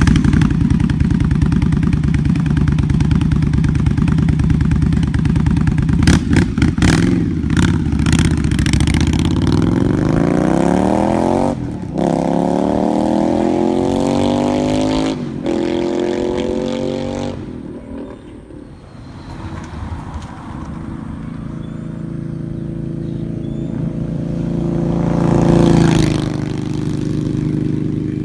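Indian Scout V-twin breathing through aftermarket J&P Cycles slip-on mufflers in place of the stock exhaust. It runs, then pulls away, its pitch climbing through the gears with three drops at the shifts. It fades off, then comes back and passes by at its loudest near the end.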